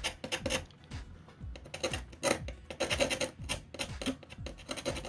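Screwdriver tip scraping over the covered top of a small 8-pin chip on a multimeter circuit board, a quick run of short, irregular scratches, as the coating hiding the chip's markings is scraped at.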